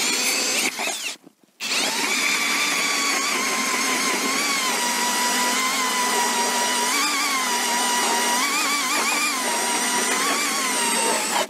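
Cordless drill driving an ice auger into the ice: its motor whines in a short run, stops briefly about a second in, then runs on, its pitch dipping and wavering under load. The ice is wet and the drilling is heavy going.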